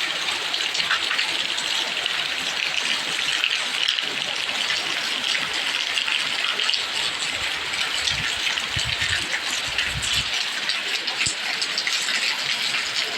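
Heavy tropical downpour: a dense, steady hiss of rain pouring down, with a few low rumbles about eight to ten seconds in.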